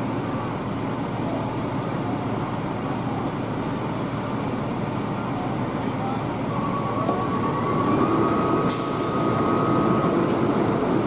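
Steady engine rumble from idling fire apparatus, with a short sharp hiss of air about two-thirds of the way through.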